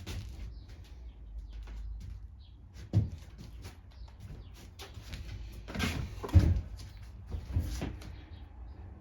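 A few knocks and clatters from small engine parts being handled. The loudest knocks come about three seconds in, around six seconds in and near seven and a half seconds in.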